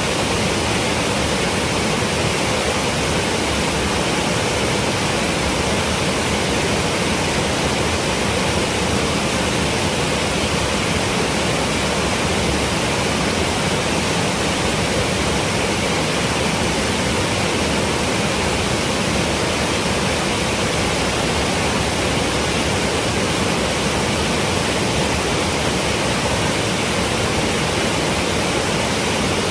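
Waterfall roaring: a loud, steady, unbroken rush of heavy falling water.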